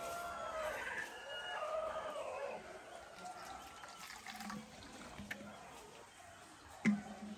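A rooster crowing in the first couple of seconds, while liquid is poured from a plastic soda bottle into small plastic water bottles; a sharp click near the end.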